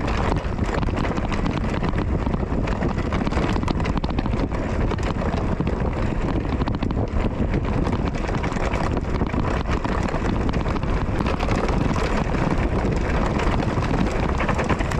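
Continuous wind rush on the microphone over a dense rattling clatter, as of a mountain bike riding fast over a rough, muddy trail.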